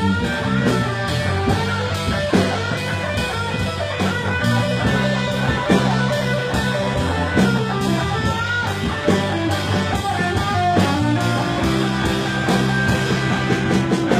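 Live blues-rock band playing an instrumental passage: electric guitar lines over steady bass notes and a drum kit.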